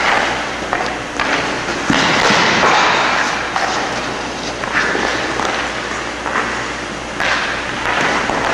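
Ice-hockey skate blades scraping and carving the ice in repeated hissing swells as a goaltender pushes and shuffles across his crease, with a single hard thud about two seconds in.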